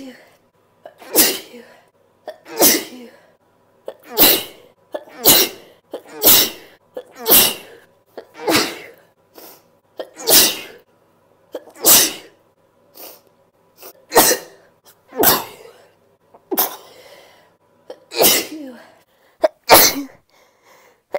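A person sneezing over and over in one long fit, about fifteen sneezes, roughly one every second or so. Some are louder than others, and a few small catches fall in between.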